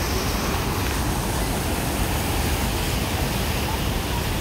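Niagara River rapids pouring over the brink of Niagara Falls: a steady, loud rush of water.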